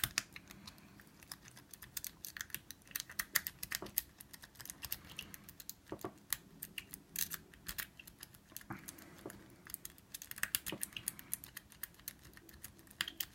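Lock-pick rake being scrubbed in and out of a single-sided wafer lock under a tension wrench: rapid, irregular metallic clicks and light scraping as the wafers are raked. The lock does not open.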